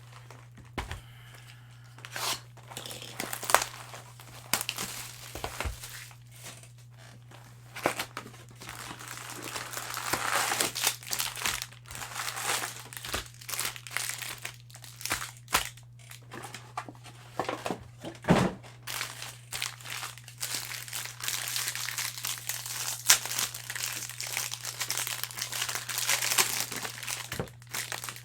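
Trading-card pack wrappers crinkling and tearing as packs are opened by hand, in irregular crackles that grow busier about ten seconds in. A steady low hum runs underneath.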